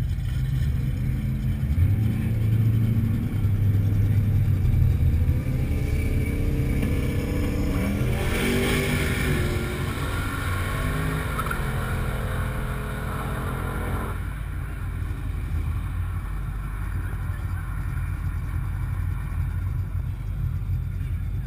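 Car engines idling with a steady low rumble. About eight seconds in, an engine revs up, its pitch climbing, and that sound cuts off sharply about fourteen seconds in.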